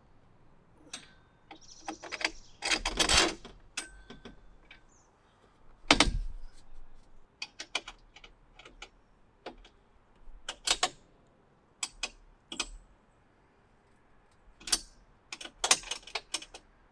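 Nuts, washers and bolts clinking and clicking as they are handled and fitted by hand to a metal mounting bracket. Irregular sharp clicks and taps, with a denser rattle about three seconds in and a sharp knock about six seconds in.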